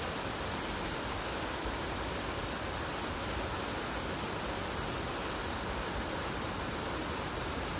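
Heavy rain falling in a steady, even hiss of downpour.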